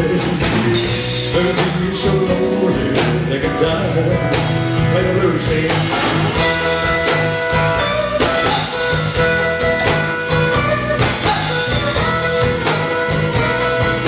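Live band music: electric guitar over a drum kit, with some singing.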